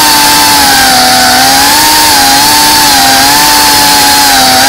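Brushless motors and propellers of a GEPRC Cinelog 35 ducted cinewhoop FPV drone, picked up by its onboard camera, running with a loud, steady whine at near-constant throttle. The pitch wavers gently and steps up slightly near the end.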